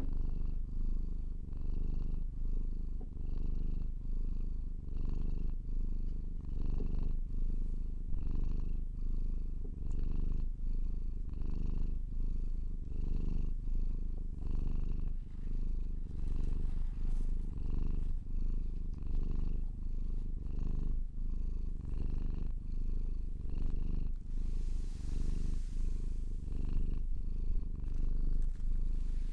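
Domestic cat purring steadily, the purr swelling and fading in a regular rhythm with each breath. A brief burst of hiss near the end.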